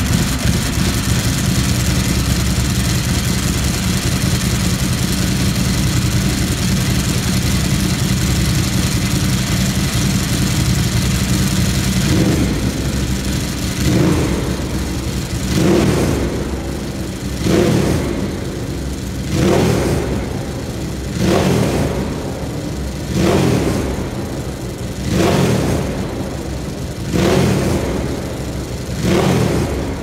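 Ducati Sport Classic's air-cooled 992 cc L-twin idling steadily, then, from about twelve seconds in, revved in short throttle blips about every two seconds.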